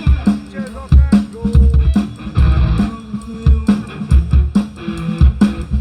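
Live band playing an instrumental passage without vocals: drum kit with a steady kick beat, electric guitar and bass guitar.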